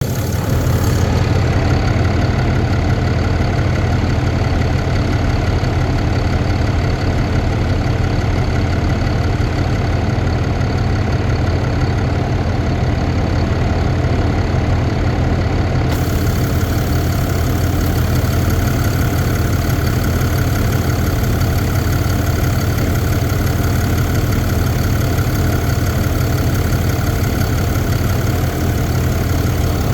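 2022 Ram 2500's 6.7-litre Cummins inline-six turbo diesel idling steadily, with a ticking noise that the owner is asking about.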